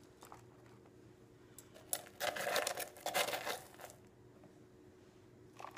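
Metal spoon scooping crushed Jolly Rancher hard candy out of a small silicone bowl: a clattering rattle of hard candy pieces against the spoon for about a second and a half, starting about two seconds in, with a few light clicks before and after.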